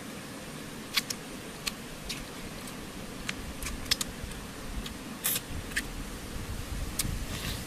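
A person eating cooked eel with her hands: scattered sharp clicks and smacks from chewing and pulling the flesh apart, about nine over the few seconds, over a low steady rumble.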